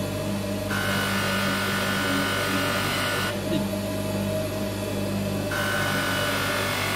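Motor-driven grinding wheel running with a steady hum, while a steel tube is pressed against it, turned and lifted off. Each contact adds a hissing grind: from about a second in to past three seconds, then again from about five and a half seconds.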